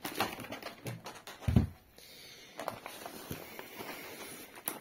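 Handling noise from a cardboard box of foam packing peanuts as a foil-wrapped firework cake is lifted out: rustling foam peanuts and crinkling foil, with a thump about a second and a half in.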